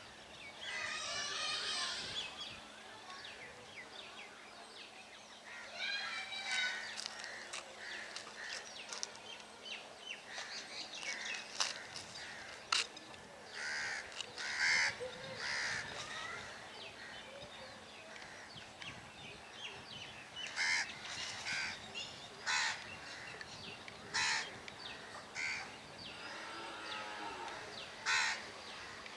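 Birds calling: many short harsh calls and chirps scattered throughout, with warbling runs of calls at the start and about six seconds in.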